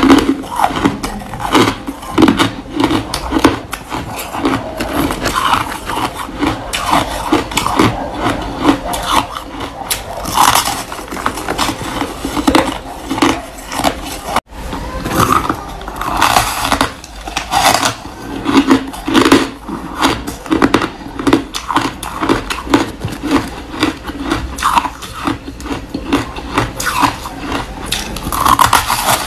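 Crunching and chewing of chunks of white snow ice, the bites cracking in a quick, uneven run of crunches, with a brief gap about halfway through.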